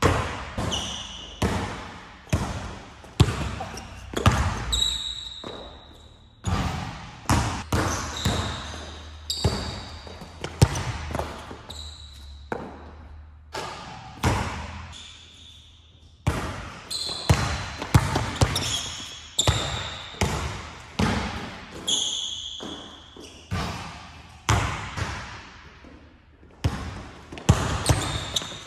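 Basketball bouncing on an indoor court floor, irregular hits roughly once a second that echo through the large hall, with short high squeaks of sneakers on the court between them.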